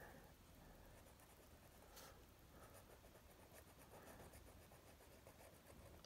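Faint scratching of a fine felt-tip pen on paper, in a few short strokes, as small spots are inked in over near-silent room tone.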